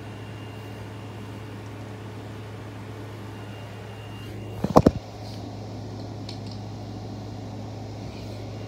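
A steady low hum, with a quick cluster of sharp knocks about halfway through.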